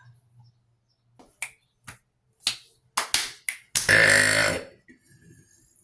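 A long, low-pitched burp of nearly a second, about four seconds in, preceded by a quick string of short sharp clicks.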